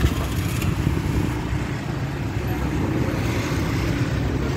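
Street traffic noise: motor scooters and cars running, a steady low rumble.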